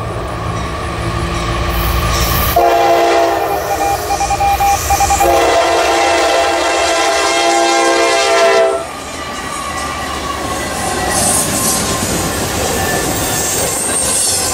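Norfolk Southern diesel locomotives passing. The lead AC44C6M's air horn sounds a chord in two long blasts back to back, starting about two and a half seconds in and stopping near nine seconds. Then the rumble and clatter of the passing intermodal container cars' wheels on the rails.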